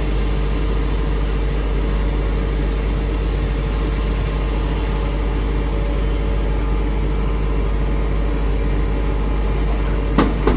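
Diesel engines of a Hitachi Zaxis 210F excavator and a Mitsubishi Fuso dump truck running steadily, a constant drone. Near the end, a few sharp clattering knocks as the excavator drops a bucketload of rock and soil into the truck's steel bed.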